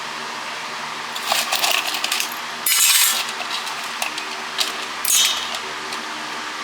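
Small scrap metal pieces from dismantled cordless phones clinking and rattling in several short bursts, the loudest about three seconds in.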